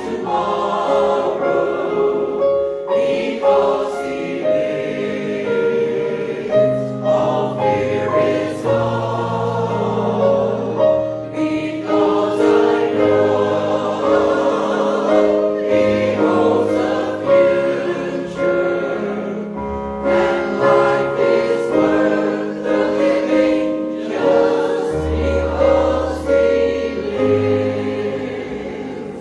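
A group of voices singing a hymn together in harmony, with long held chords and low bass notes, dying away near the end.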